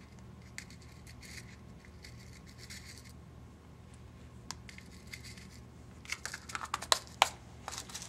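Faint rustling and scratching of hands handling small fly-tying materials, then a quick run of sharp clicks and crinkles about six seconds in.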